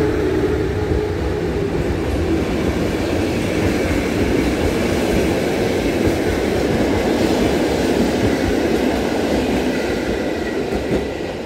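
Passenger coaches of a PKP Intercity train rolling past close by: a steady rumble of steel wheels on the rails, beginning to fade near the end as the last coach goes by.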